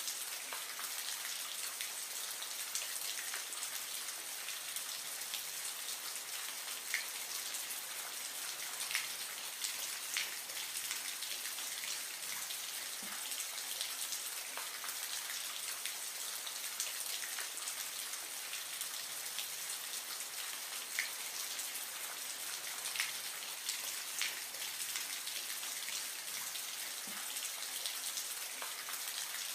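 Steady hiss of falling or splashing water, dotted with small drip-like ticks every second or so.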